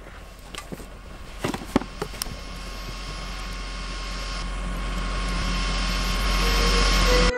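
A sound-design riser: a dense rushing swell that grows steadily louder over several seconds and cuts off abruptly near the end. A few sharp clicks come in the first couple of seconds.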